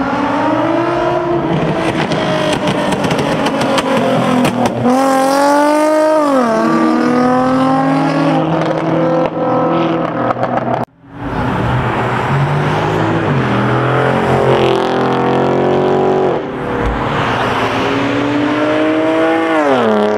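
Drift car's engine revving hard, its pitch climbing and dropping several times as it accelerates. The sound cuts out for a moment about eleven seconds in.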